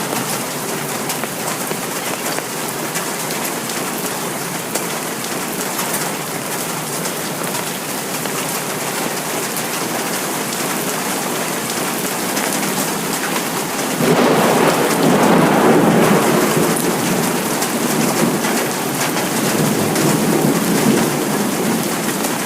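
Steady rain falling, an even hiss of drops. About two-thirds of the way through a sudden louder, deeper swell comes in and fades away over several seconds, then swells briefly once more.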